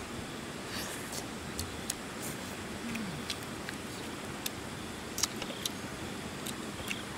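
Steady rush of a flowing river, with scattered light clicks of chopsticks on a metal wok.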